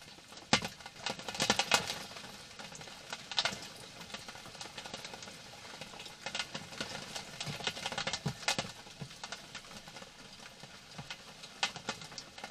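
European hedgehog moving about in dry straw bedding, giving irregular rustling and crackling with sharper clicks here and there, busiest in the first couple of seconds and again near the end.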